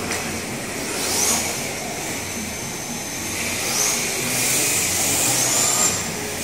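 Electric motors of 1/10-scale RC drift cars whining, rising in pitch as the cars accelerate around the track, three times, over a steady hum of mall background noise.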